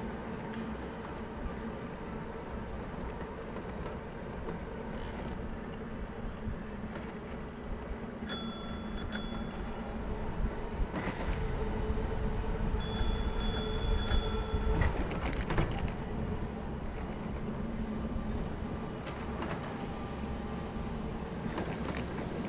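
Bicycle bell rung twice, then three times a few seconds later, clear high rings over the steady rumble of wind and tyres from a bicycle riding along the trail.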